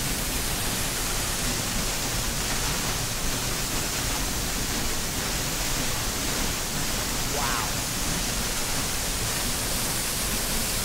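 Steady rush of water from a tall waterfall, a constant even noise.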